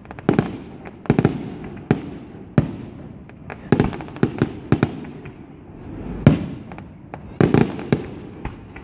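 Fireworks display: aerial shells bursting in a dozen or so irregular sharp bangs, some in quick pairs, the loudest about six seconds in.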